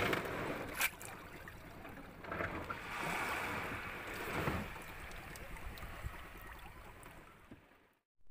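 Rushing water and wind noise around a small boat at sea, rising and falling unevenly, with one sharp click about a second in; it fades out just before the end.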